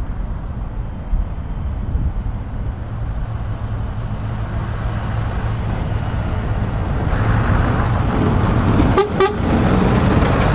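Heavy truck's engine running and growing steadily louder as it approaches, with two quick horn toots near the end.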